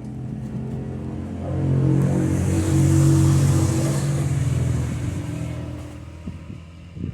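A car engine with a high hiss above it, swelling to its loudest a couple of seconds in and fading away again.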